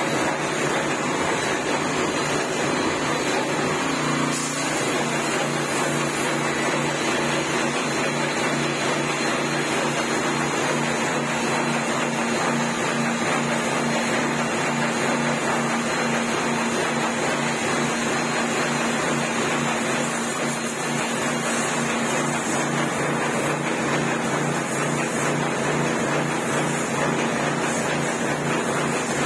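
Putty spray machine running steadily, a low machine hum under the continuous hiss of wall putty spraying from the gun.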